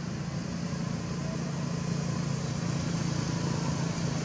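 An engine running steadily: a constant low hum over an even hiss.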